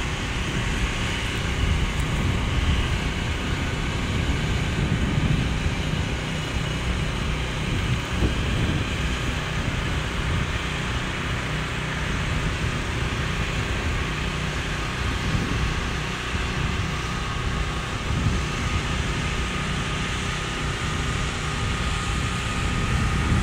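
Wind buffeting the microphone: a steady low rumbling noise that swells and eases without break.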